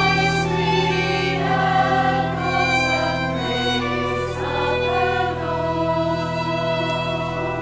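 Women's choir singing, accompanied by a solo violin and by an organ holding steady low notes underneath.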